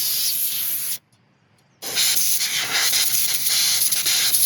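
Compressed air from an air compressor's blow gun hissing into the oil hole of a chainsaw bar to clear out wood chips. Two blasts, with a short break about a second in.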